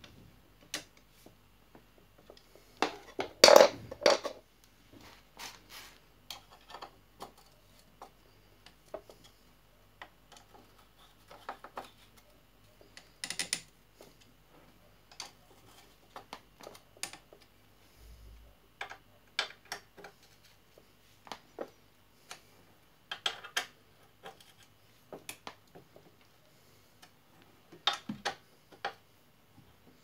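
Scattered metal clicks, taps and clinks as a Shimano XT crankset is handled and fitted onto a bottom bracket, with a louder clatter of knocks about three to four seconds in.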